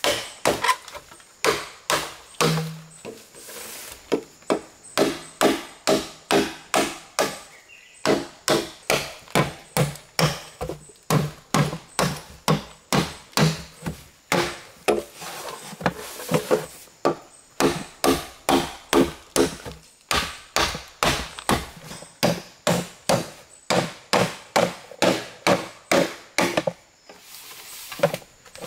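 Machete chopping green bamboo, steady strokes at about two a second with a few short pauses.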